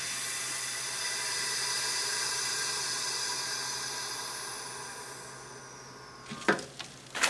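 Avid Armor chamber vacuum sealer's pump running steadily as it draws the air out of the chamber around a foil bag. The sound fades gradually and stops about six seconds in. Near the end come a few sharp crackles as the foil bag is handled.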